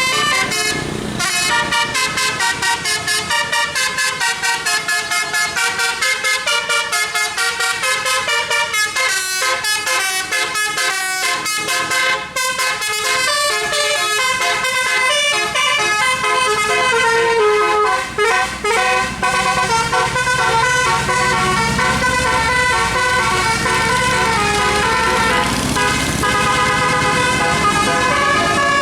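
A bus's multi-tone 'telolet' musical air horn, a Basuri horn with roof-mounted trumpets, playing a fast melody of short notes that change pitch several times a second. A low rumble joins in about two-thirds of the way through.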